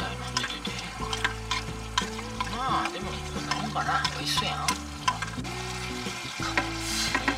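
Pork, bean sprouts and garlic chives sizzling in a frying pan as they are stir-fried, with frequent short clicks and scrapes of the spatula against the pan.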